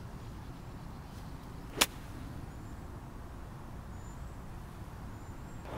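A single sharp crack of an 8-iron striking a golf ball on a punch shot, about two seconds in, over faint low background noise.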